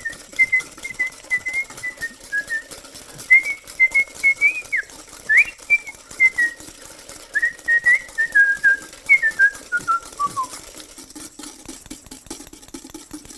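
A man whistling a wavering tune that ends in a falling run about ten seconds in, while egg whites are beaten by hand in a bowl with rapid, steady clicks.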